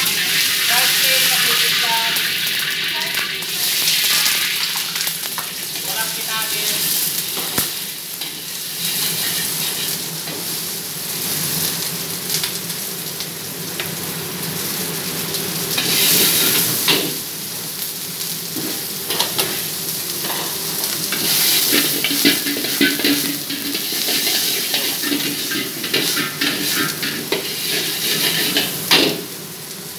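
Egg fried rice sizzling in a hot wok while a metal ladle stirs it, scraping and clanking against the pan in many short strikes. A steady low hum runs underneath.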